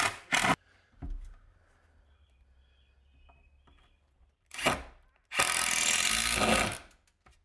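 Cordless drill driver running screws into plywood: short bursts at the start, another just before five seconds, then one long run of about a second and a half as a screw is driven home.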